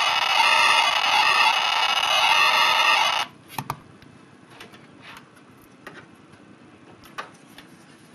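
ChipTrickPocket DIY chiptune synthesizer, modulated by an XR-NoizBoxII, playing a harsh, dense electronic buzz of many stacked tones whose pattern changes rapidly. It cuts off suddenly about three seconds in. A couple of sharp handling knocks follow, then a few faint clicks.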